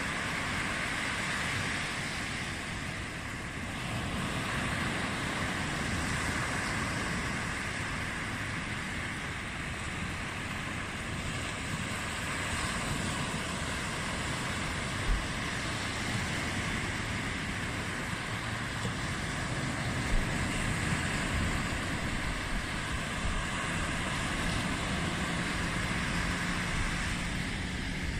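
Sea surf: small waves breaking and washing up the beach, with wind buffeting the microphone. Two brief low thumps stand out partway through.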